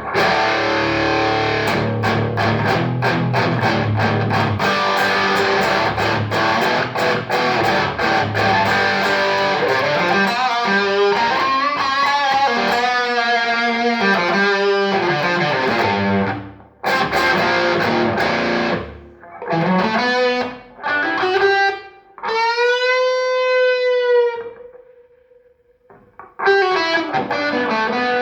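Electric guitar with humbucker pickups played straight through a Trace Elliot Trident valve combo amp with 6L6 power valves, set to an overdriven tone. Strummed chords give way to single-note lines, then a long bent note with vibrato, a brief pause, and chords again near the end.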